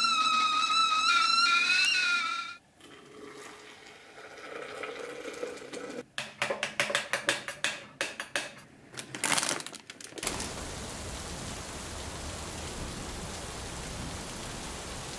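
Stovetop kettle whistling at the boil with a wavering pitch, cut off about two and a half seconds in. Hot water is then poured into a flask in uneven splashing gushes. From about ten seconds in a steady hiss of rain takes over.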